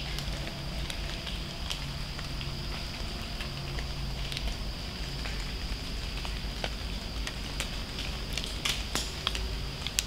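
Acorns dropping from oaks onto dry leaf litter: scattered ticks and light crackles that sound like rain, thickest near the end, over a steady high-pitched drone.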